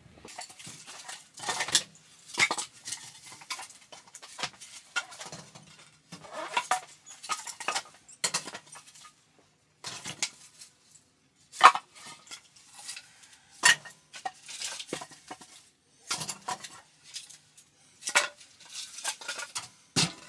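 Irregular clinking and clattering of dishes and utensils being handled, with a few sharper knocks among many light ones.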